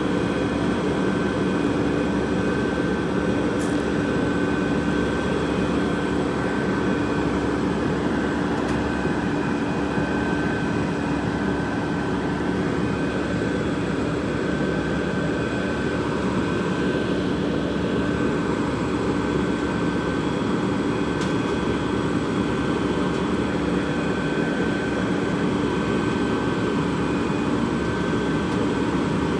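Rear-loader garbage truck's diesel engine running at a constant speed, a steady rumble with a fixed hum and no change in pitch.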